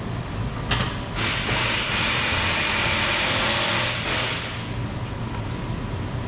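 An A/C refrigerant recovery machine runs with a steady low hum. A loud, even hiss starts about a second in and cuts out after about three seconds.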